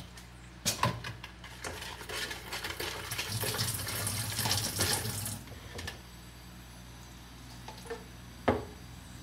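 Water poured into a plastic pitcher, splashing for a few seconds and stopping about halfway through, with light knocks of plastic around it. A single sharp knock near the end.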